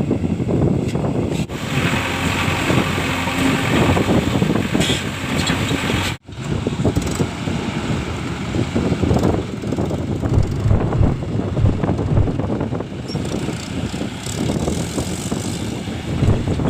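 Diesel engine of a JCB 3DX backhoe loader running while it works, its level rising and falling, with wind noise on the microphone. The sound cuts out for a moment about six seconds in.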